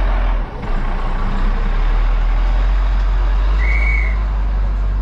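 Ford L8000 truck driving slowly past close by, its engine giving a low, steady rumble along with tyre noise. A short, high whistle-like tone sounds about three and a half seconds in.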